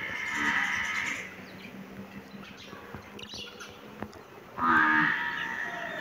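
Two long, drawn-out animal calls. The first runs for about the first second; the second, louder, starts sharply near the end and lasts about a second and a half.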